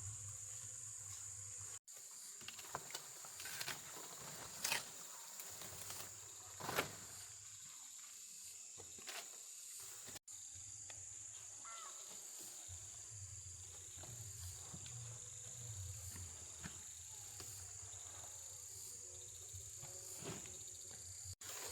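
Steady high-pitched insect chorus from the surrounding countryside, with a few sharp clicks and knocks in the first third.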